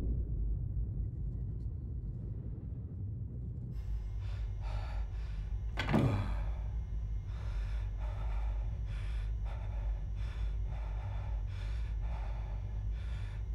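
Sci-fi sound effects: a low steady drone, joined about four seconds in by a string of short mechanical chirps, roughly two a second, with one quick downward-sweeping tone near six seconds.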